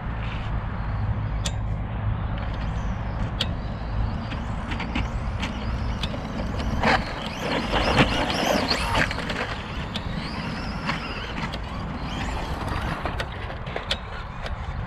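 Traxxas Slash 2WD VXL RC trucks running laps, their brushless electric motors whining up and down in pitch over a steady rushing noise, with scattered sharp clicks and knocks. The loudest stretch is about seven to nine seconds in.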